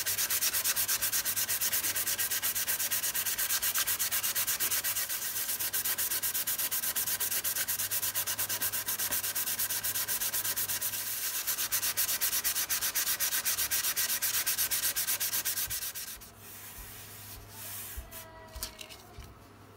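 Sandpaper rubbed by hand over the wooden rib of a cello in rapid, even back-and-forth strokes, sanding a glued-in wood patch flush with the surface. The strokes stop about sixteen seconds in, leaving fainter rustling.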